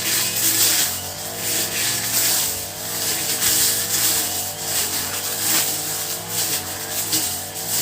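Honda four-stroke grass cutter (brush cutter) engine running, its pitch wavering up and down slightly, with a strong high hiss that swells and fades about once a second.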